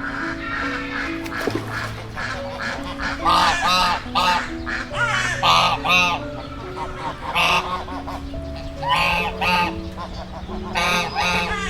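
Waterfowl calling over and over in clusters of short calls, over background music with long held notes.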